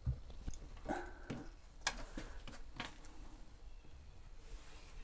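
An old rotary-dial telephone being handled: about six separate, irregular clicks and knocks over the first three seconds, then quieter.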